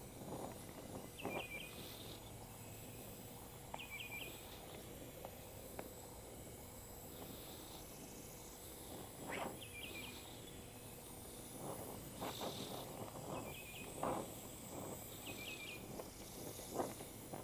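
Gas brazing torch flame hissing steadily as it heats the cast iron, with a few faint crackles. Short triple chirps repeat every two to three seconds.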